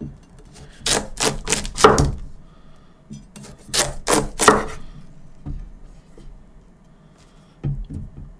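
Knife cutting into a yellow-fleshed watermelon: two quick runs of three or four sharp cutting strokes, the first about a second in and the second about three and a half seconds in, then a few softer knocks near the end.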